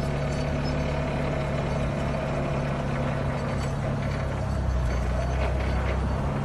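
Propane-powered Yale forklift's engine running steadily as the forklift drives.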